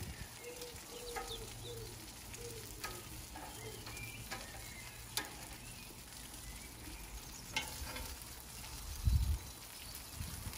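Sausages and burgers sizzling on a gas barbecue grill, with a few sharp clicks as the food is worked with a utensil. There is a low bump about nine seconds in.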